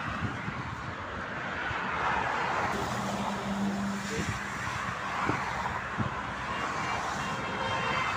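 Steady motorway traffic noise: tyres and engines of vehicles on the road, with a short low hum about three seconds in.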